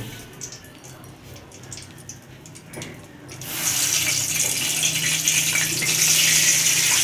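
Hot oil with mustard-seed tempering sizzling in a kadhai. A steady hiss starts suddenly about halfway through as green chillies go into the oil. Before that there are only faint clicks.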